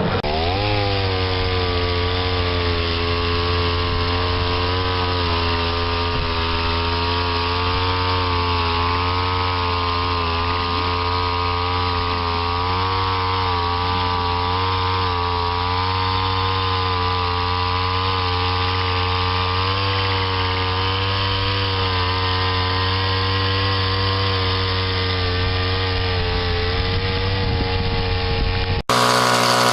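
A motor runs steadily with a slightly wavering pitch after speeding up in the first second. About a second before the end it cuts abruptly to a different machine sound.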